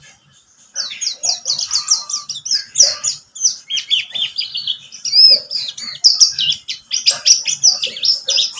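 Buxtoni white-eye (pleci) singing a fast, continuous twittering song of high, quick sweeping notes, starting about a second in.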